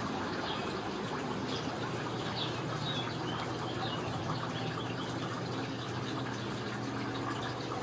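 Steady rushing background noise with a low hum underneath. Faint short high chirps come in the first half.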